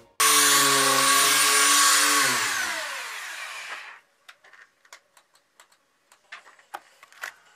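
Electric belt sander running at full speed, then losing power about two seconds in and winding down, its pitch falling until it stops about four seconds in; a few light knocks and clicks follow. The sander has been cut off by a loss of power.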